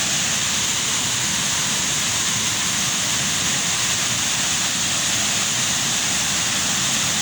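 Waterfall pouring steadily: an even, unbroken rushing noise.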